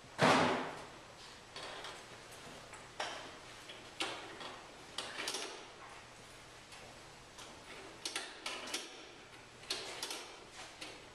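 Irregular knocks and taps, probably footsteps and objects handled on a hard floor, with one louder knock that rings on a moment about a quarter second in.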